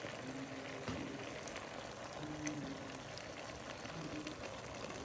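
Taro and onion-tomato masala sizzling softly in an aluminium pot as a steady, even hiss, with one faint knock about a second in.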